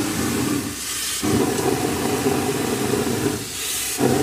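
Gunite spraying equipment running: a steady engine drone, which drops away twice while a rush of air hiss comes through, the louder one about three and a half seconds in.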